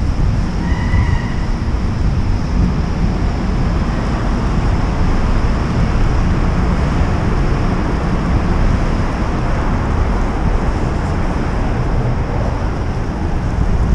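Wind buffeting the microphone of a camera on a moving bicycle: a steady, loud low noise. A brief faint high tone sounds about a second in.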